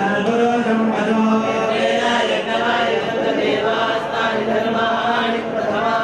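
Male voices chanting Sanskrit mantras together in a continuous puja recitation, with one steady held pitch under the changing syllables.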